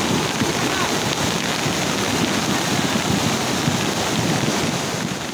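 Muddy floodwater from a flash flood rushing and churning down a channel after a heavy storm, a loud, steady rushing that starts to fade at the very end.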